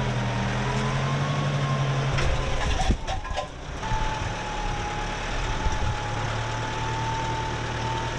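Heavy engine running steadily at a constant pace, with a thin steady whine above the hum. A short rattle and clatter comes about three seconds in.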